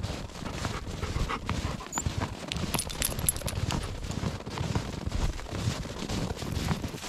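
A dog panting as it walks, with steady rhythmic footsteps.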